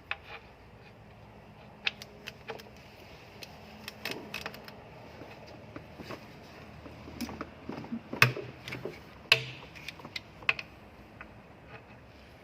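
Scattered metallic clicks and clinks of a 14 mm socket and wrench being fitted to and worked on an engine oil pan drain bolt, coming at irregular intervals with a few sharper clinks.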